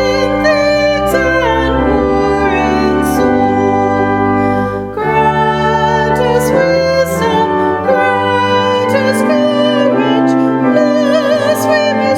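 Church music: a singer with vibrato over held keyboard chords, with a brief break between phrases about five seconds in.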